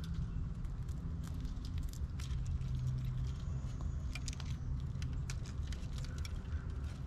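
Eastern gray squirrel chewing and cracking seeds close by: irregular sharp clicks and crunches, over a steady low hum.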